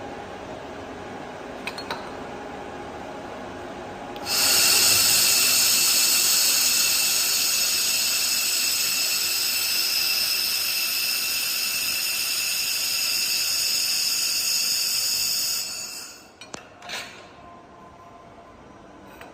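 2500 W handheld laser welder welding 3 mm aluminium with wire feed. It starts about 4 s in with a steady high whine and hiss, holds for about eleven seconds, then cuts off abruptly. A few light clicks follow.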